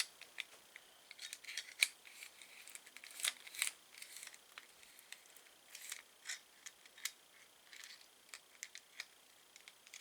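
Faint, scattered small clicks and taps of metal door-hardware parts being handled, likely the knob set's adjustable latch being worked, at irregular intervals with no steady rhythm.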